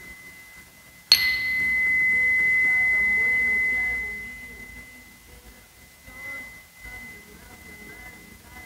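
A small hand-held metal sound-healing instrument is struck once about a second in. It rings with a single clear high tone that holds for a few seconds and then fades away. This marks the close of a meditation.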